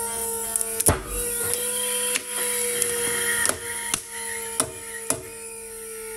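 Pull-test rig's motor whining steadily, its pitch sagging slightly, as it slowly loads a rope through a Petzl GriGri belay device and carabiner. About eight sharp cracks and creaks come from the rope and knots tightening under the rising load.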